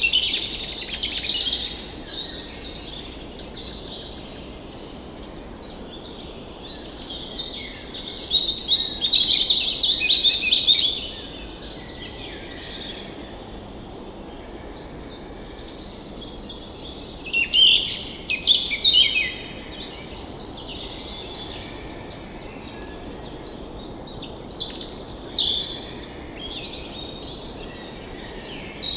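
Songbirds singing and chirping in repeated bursts, loudest near the start and around a third, two thirds and nine tenths of the way through, over the steady low rush of a forest stream.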